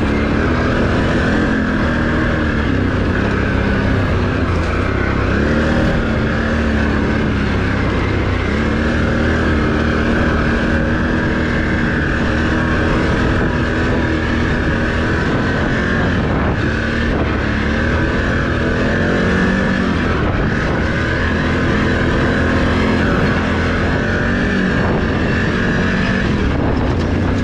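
Can-Am Renegade ATV's Rotax V-twin engine running under way along a trail, its pitch rising and falling a little as the throttle changes, with a few brief knocks later on.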